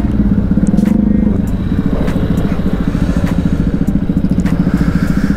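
Motorcycle engine running steadily, heard from on the bike.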